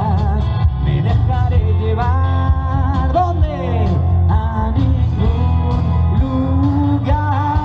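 Live rock band playing a song through PA speakers: electric guitar and bass guitar with lead vocals sung over them.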